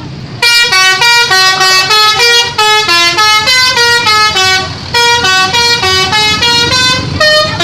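Bus telolet horn, a multi-tone musical air horn, playing a fast tune of stepped notes, about four notes a second, with a short break about halfway through.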